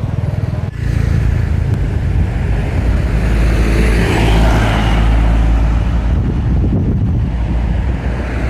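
A motor vehicle engine running close by, with a low rumble that swells about halfway through and then eases, as if the vehicle passes.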